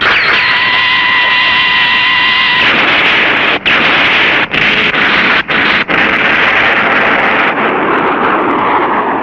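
A loud sound effect from Showa-era kaiju films and tokusatsu shows. It is a dense rushing noise with two steady high tones for the first two and a half seconds, then broken by several brief cut-outs, fading away near the end.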